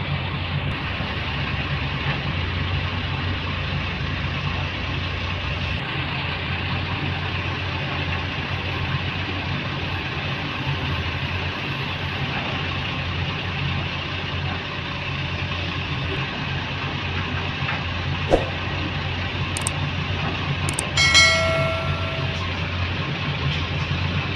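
Heavy tipper truck's diesel engine running with a steady low drone, heard from inside its cab as it drives slowly. A few sharp clicks come near the end, then a short high-pitched tone lasting about a second.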